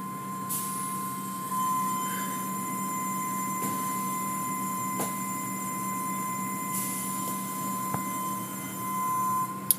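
Automatic car wash machinery running, heard from inside the car: a steady whine over a low hum, with two short hissing bursts and a few sharp knocks.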